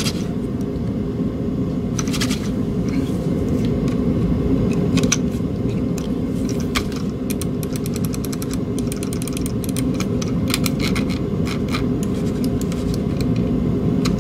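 Button clicks of a Logitech G900 gaming mouse fitted with new Omron microswitches, being tested after a double-click fault: a few scattered clicks, then a rapid run of clicks from about halfway to near the end. A steady low hum runs underneath throughout.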